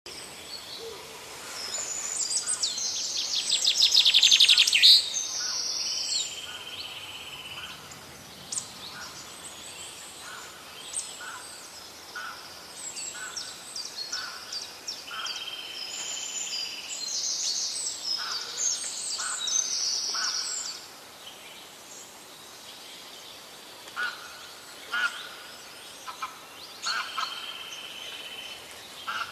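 Several forest songbirds singing and calling over one another, with a loud, rapid trill a few seconds in and a short steady whistle that recurs three times, over a faint steady hiss.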